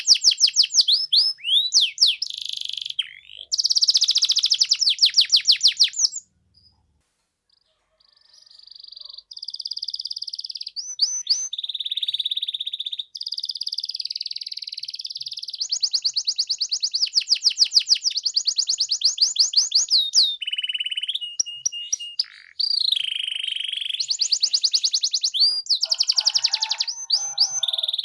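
Domestic canary singing in long, fast rolls of repeated high notes and trills. The song stops for about two seconds of silence around six seconds in, then resumes.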